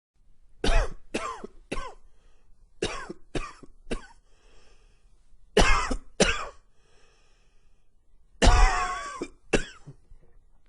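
A man coughing in a fit: short harsh coughs in quick groups of two or three, with breaths drawn in audibly between the groups, and a longer, rougher cough near the end. The uploader puts the coughing down to allergies set off by cooler fall weather.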